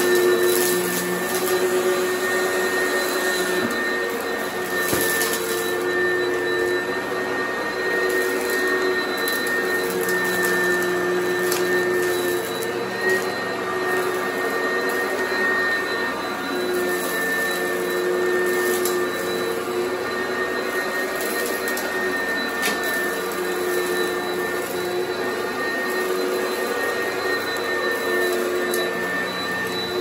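Oreck XL Commercial upright bag vacuum running steadily over dirty carpet, its motor a constant hum with a high whine, with scattered short crackles and ticks as crunchy grit and debris are sucked up.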